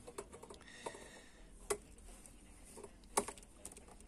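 Small scattered metal clicks and taps of pliers working at the mounting nut of a panel jack on the radio's metal chassis, with two sharper clicks about a second and a half apart. The jack is stuck fast.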